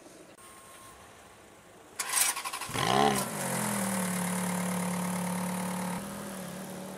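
Supercar engine start: the starter cranks briefly about two seconds in, the engine catches with a quick rev blip near three seconds, then settles into a steady high idle that drops a little about six seconds in.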